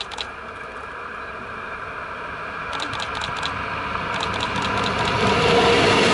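Alstom Coradia LINT 41 diesel multiple unit approaching. Its engine and running noise grow steadily louder as it draws close, with a few quick runs of sharp clicks along the way.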